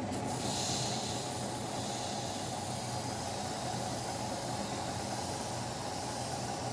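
Spindle sander running steadily, its sanding drum hissing against the wooden propeller hub held to it; the hiss brightens about half a second in as the wood is pressed on.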